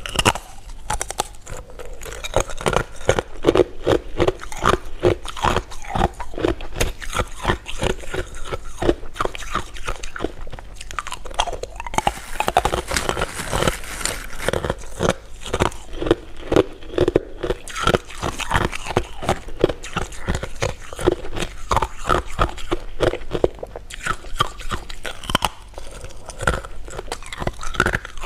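Close-miked chewing and crunching of sweets: a continuous run of many small wet clicks and crunches, several a second.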